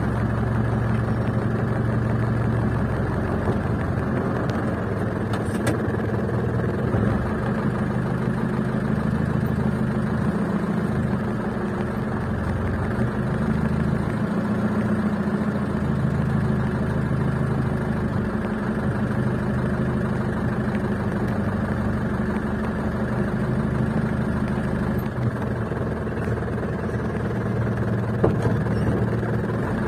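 Ragasa truck's engine running at low speed during a slow parking manoeuvre, heard from inside the cab. The steady drone shifts a little in pitch as the truck moves.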